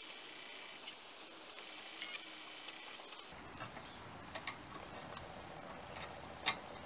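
Faint, irregular clicks and ticks of a hand tap cutting a thread with a tap wrench, tapping a hole for an M6 Helicoil insert, with one louder click near the end.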